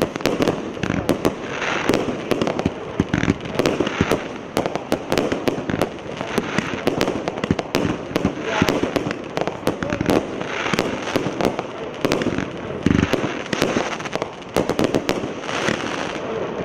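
Consumer firework battery (multi-shot cake) 'Anshlag 2' firing: a continuous run of sharp shots and bursts, several a second, with no pause.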